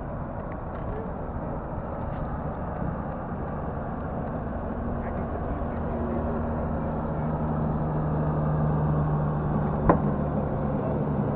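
Boat motor running steadily under a rush of wind and water noise, its hum growing stronger about halfway through. A single sharp knock near the end.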